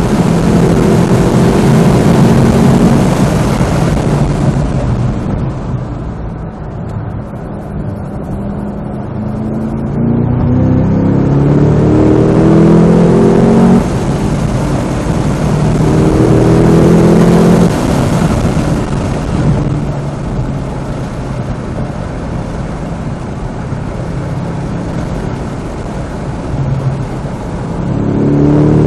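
2025 Cadillac CT5-V Blackwing's supercharged V8 engine under hard acceleration, its pitch climbing in long sweeps with a sudden drop about halfway through. Between the pulls it goes quieter off the throttle, then climbs again near the end.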